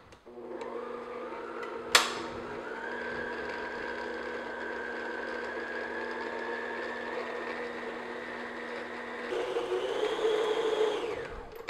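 Stand mixer with a paddle attachment beating confectioners' sugar into softened butter for buttercream frosting. The motor comes up to speed with a rising whine and then runs steadily, with a sharp knock about two seconds in. About nine seconds in it is switched off and winds down.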